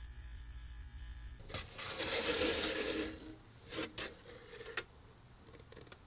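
Bench grinder wheel spinning with a steady motor hum, which stops suddenly about a second and a half in. Then plastic handling: a stiff plastic jug and container rustling and knocking for a second or two, followed by a few sharp clicks, and a quieter stretch as thick used motor oil is poured.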